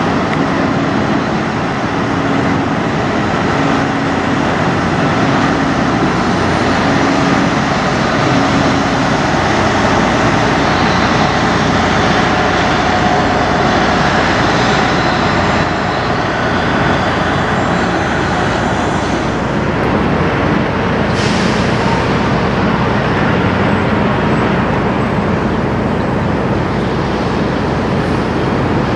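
Diesel semi trucks running and driving past, with steady engine and road noise. A brief sharp hiss of air brakes comes about two-thirds of the way through.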